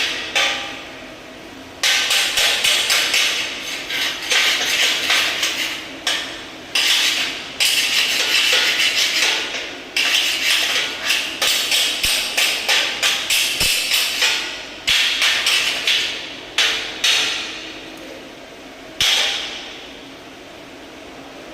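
Hammer striking metal rapidly, about five blows a second, in short bursts with brief pauses between them.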